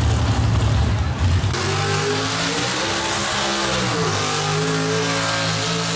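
Pulling truck's engine running hard as it hauls the weight sled: a deep rumble at first, then, after an abrupt change about a second and a half in, a loud steady engine note whose pitch dips in the middle and climbs again.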